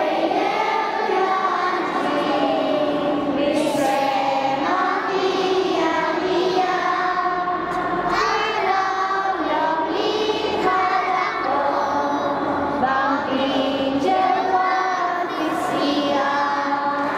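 A group of young children singing together in chorus, a Christmas song with held, sustained notes.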